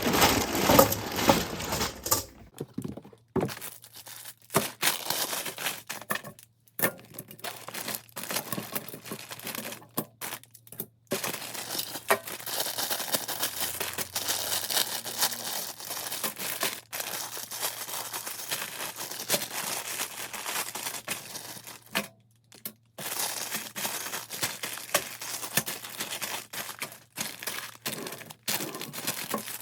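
Plastic bags of Lego pieces crinkling and rustling as they are taken out of a freshly opened cardboard box, with a few short pauses.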